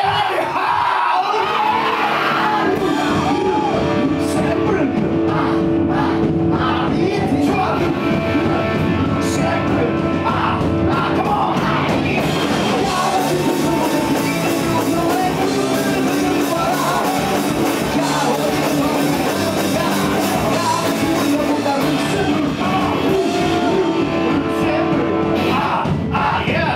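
Korean punk rock band playing live, with electric guitars, bass and drums under sung and shouted vocals.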